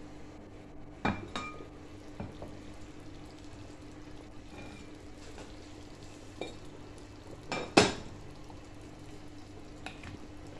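Glass lid clanking against a stone-coated cooking pot as it is lifted off, a quick double knock about a second in, with a few more knocks of lid or utensil on the pot and the loudest one about eight seconds in. A steady low hum runs underneath.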